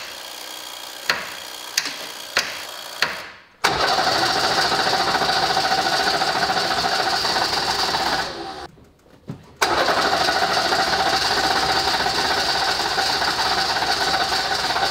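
A few sharp clicks, then the starter cranking the Mercedes OM617.912 five-cylinder non-turbo diesel in a Unimog 404 in two long, steady bursts with a short break in between. The engine turns over but does not fire: it is not getting enough fuel, a fault later traced to stuck plungers in the injection pump.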